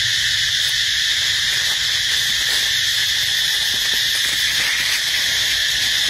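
Steady, unbroken high buzzing of an insect chorus, with no breaks or changes in level.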